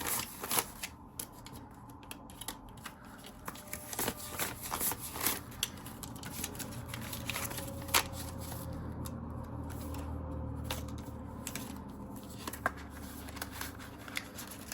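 Paper banknotes being handled and counted: crisp rustles and flicks of bills as they are sorted into cash envelopes, coming thick at first and sparser later, over a low steady hum.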